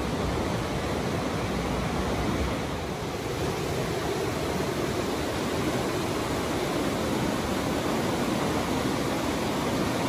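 Mountain stream rushing over boulders in whitewater rapids: a steady, even rush of water.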